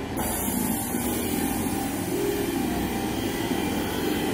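BLS commuter train led by an RBDe 565 railcar passing close by, its coaches rolling past with a steady low rumbling drone. A hiss on top grows stronger about a quarter second in.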